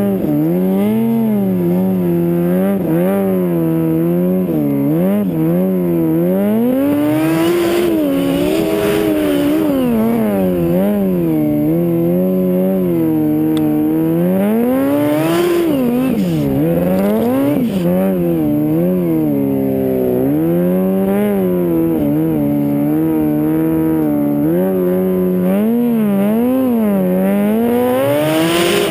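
Yamaha snowmobile engine revving up and down continuously while ploughing through deep powder snow, its pitch rising and falling constantly with the throttle.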